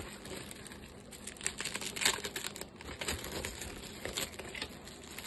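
Clear plastic bag crinkling and rustling as hands handle it, a run of irregular small crackles.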